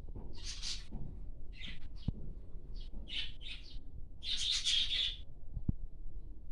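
Diamond dove chick calling in short, hissy high-pitched squeaks, about seven of them, with the longest and loudest about four seconds in. These are the begging calls of a hand-fed chick.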